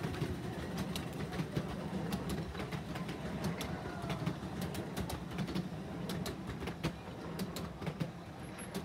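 A miniature steam train running past on its track: a steady low rumble with many sharp clicks, slowly fading near the end.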